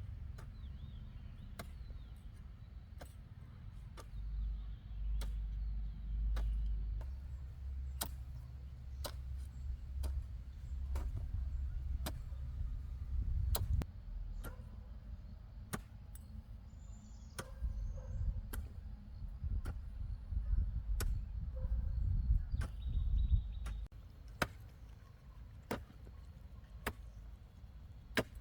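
Sharp knocks repeating at an even pace, a little more than one a second, over a low, uneven rumble.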